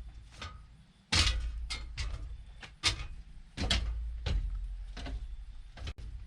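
Footsteps on an aluminum loading ramp whose rungs have been pop-riveted tight: a series of separate dull thuds with light metallic clacks, a step every half second to second.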